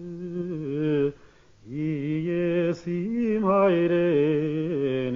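A man singing an Armenian folk song alone without accompaniment, holding long, ornamented notes with a wavering, quivering pitch. He breaks off briefly about a second in, then resumes and sweeps up into a higher held note.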